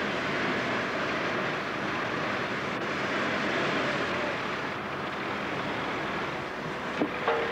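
Sawmill machinery running with a steady mechanical noise, and a couple of sharp knocks near the end.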